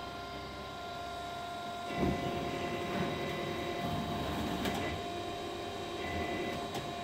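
Sheet-metal air duct production machinery running: a steady mechanical hum with several constant high tones. There is a knock about two seconds in, and after it the running grows busier with rattling.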